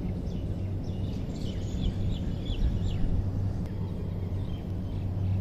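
Birds chirping in short, repeated high calls over a steady low hum and rumble.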